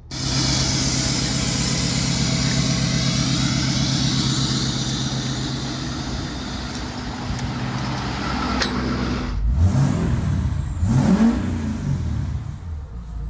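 2021 Ford F-250 pickup engine with a straight-piped exhaust idling steadily, then revved up and back down twice near the end.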